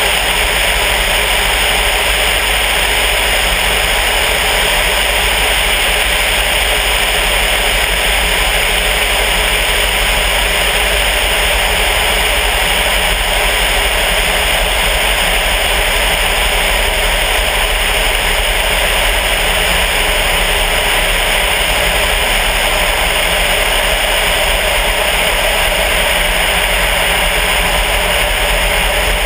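Steady, loud rush of wind over a camera mounted outside a Sonex light airplane in flight, with the drone of its Volkswagen-based engine underneath.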